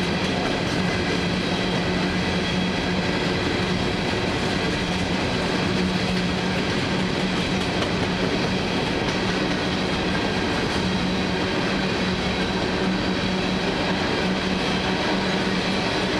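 Freight train cars rolling past steadily, their wheels running on the rails with some clickety-clack over a steady low hum.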